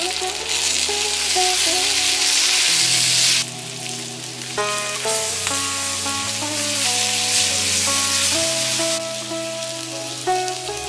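Mint leaves and onions sizzling in hot oil in a brass pot as they are stirred with a wooden spatula. The sizzle is loud for the first few seconds, cuts off abruptly, then comes back fainter, over instrumental background music.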